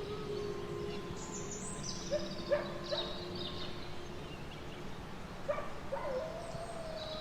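Wolves howling in long, nearly level held notes, with short rising yips in two clusters, about two seconds in and again near six seconds. Birds chirp high above them in a forest ambience.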